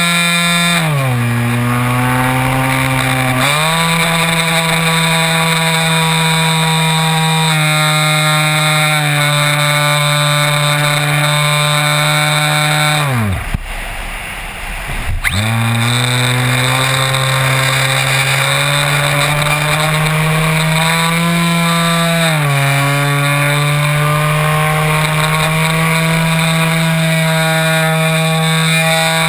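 Electric motor and propeller of a Multiplex Xeno RC flying wing, heard from a camera mounted on the plane: a steady, pitched drone that drops in pitch as the throttle is eased about a second in and comes back up a few seconds later. Near the middle the motor is cut for about two seconds, leaving only a low rush of air, then spools back up with rising pitch; it dips once more later on.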